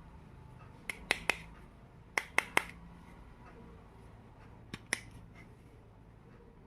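Small plastic miniature kitchen toy pieces clicking and tapping as they are handled: three quick groups of sharp clicks, two or three at a time.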